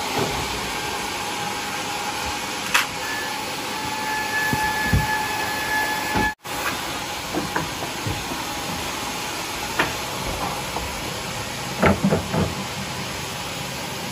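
Sawmill machinery running: a steady hiss with a faint whine that stops about six seconds in, the sound dropping out for a moment right after, and a few scattered knocks, more of them near the end.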